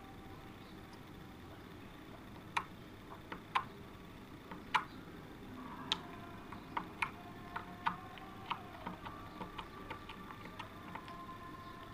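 Slime being squeezed and poked, giving sharp, irregular clicks and pops as air pockets burst, coming more often in the second half.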